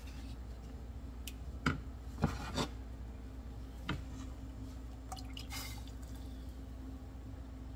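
A few light knocks of a wooden spoon and the stainless-steel pot, then, about five and a half seconds in, thick tomato sofrito is poured from a small pot into a pot of beans with a brief wet splatter.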